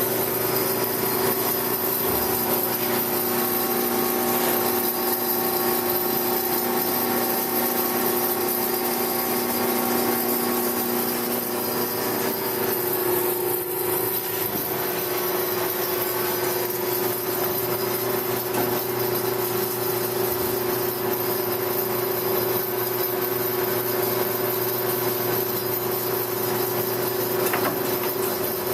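A 10-horsepower Hem double-column automatic horizontal bandsaw running steadily, a hum of several steady tones over noise; one lower tone drops out about twelve seconds in.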